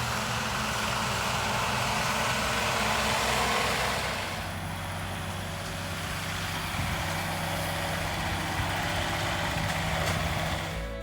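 Heavy delivery vehicle's engine running steadily under a rushing noise, which is louder for the first four seconds and then eases.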